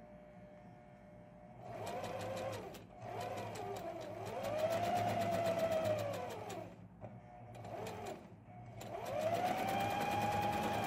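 Electric household sewing machine stitching in four short runs, with short stops between them. The motor whine rises and falls in pitch with each run as it speeds up and slows down, over a rapid even needle clatter.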